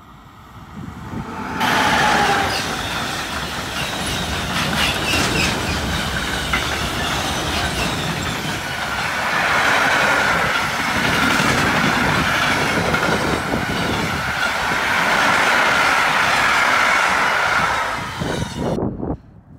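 An SBB electric locomotive and a long train of covered freight wagons pass close by: a loud rush of wheels on rail with the clickety-clack of wheels over the rail joints. A high ringing wheel squeal runs through the second half. The sound cuts off suddenly near the end.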